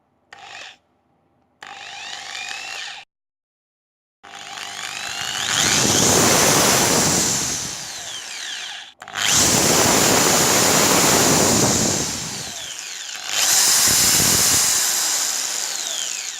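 BLACK+DECKER HD555KA50 550 W corded hammer drill test-run with no load: a brief blip of the trigger, a short run at low speed, then long runs in which the motor winds up to full speed and eases back with the variable-speed trigger, stopping briefly about halfway through before starting again.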